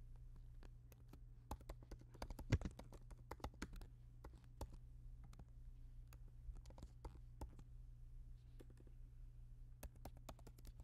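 Faint typing on a computer keyboard: quick runs of keystrokes in the first few seconds, then a few scattered taps.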